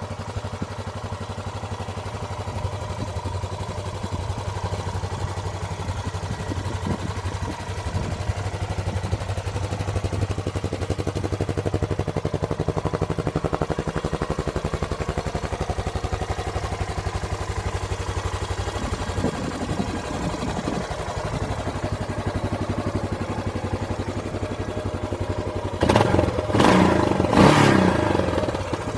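Yamaha XT500's single-cylinder four-stroke engine idling steadily with an even pulse. Near the end it is revved in a few short throttle blips.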